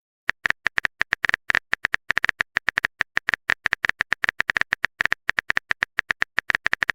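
Rapid keyboard-typing clicks, about nine a second, the typing sound effect of a chat message being written.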